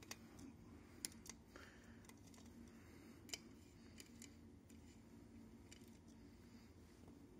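Near silence with a few faint, sharp clicks as a small screwdriver turns out the screws holding the metal bracket over a projector's DLP chip.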